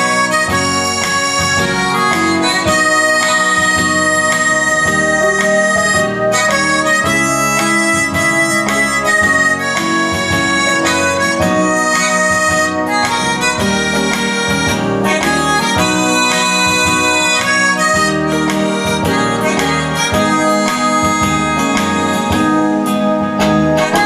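Harmonica played into a stage microphone, carrying a melody of held notes that change every second or so, over musical accompaniment.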